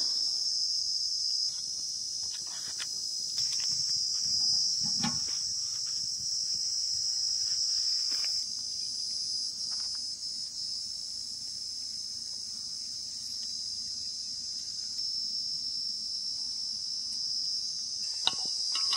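Steady, high-pitched chorus of insects in the fields, with a few faint clicks now and then.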